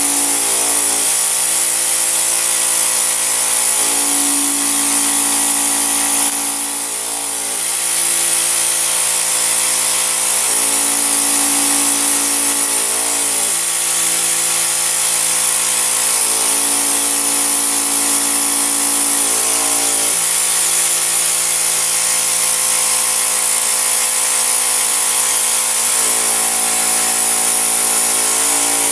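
Vacuum cleaner motor running steadily with a high whine while its nozzle is drawn over fabric sofa upholstery; the tone shifts every few seconds with the strokes, and the sound dips briefly about six seconds in.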